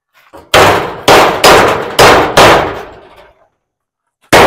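Hammer blows on a sheet-metal panel edge, five sharp ringing strikes about half a second apart, then one more near the end. The cut edge is being hammered down to straighten it.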